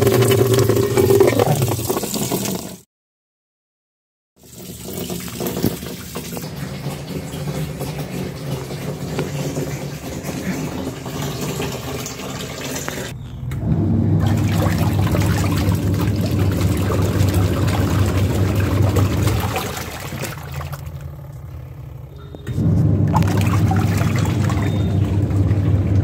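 innoQ semi-automatic washing machine running its wash: the motor hums while the pulsator churns water in the tub. The hum drops away and comes back a few times. The sound cuts out completely for about a second and a half near the start.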